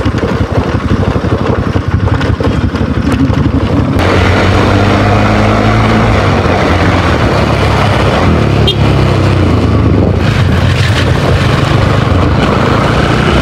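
Motorcycle engine running at a steady road speed, heard with wind buffeting the helmet mic. About four seconds in, the buffeting stops abruptly and a steady, low engine drone comes through clearly.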